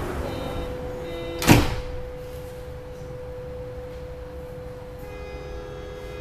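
Berlin U-Bahn Type G train's doors slamming shut with a single loud thud about a second and a half in, after the departure call. A steady hum from the train runs underneath.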